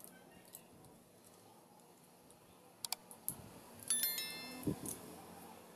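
Hand disassembly of a portable speaker with a screwdriver: a couple of sharp clicks about three seconds in, then a small metal part clinks and rings briefly with a high metallic ping, followed by a dull thump.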